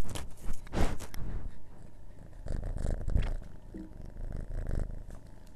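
Cat rubbing its head against a small handheld microphone, the fur scraping and rustling over the grille, loudest in the first second. Then quieter rustling over a low cat purr picked up close to the microphone.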